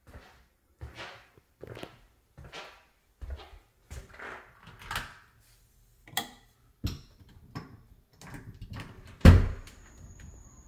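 Footsteps on a hard floor at an even walking pace, then sharp clicks of a door latch and a loud thump as the door is pulled open about nine seconds in. Right after it, a steady high-pitched trill of night insects such as crickets comes in from outside.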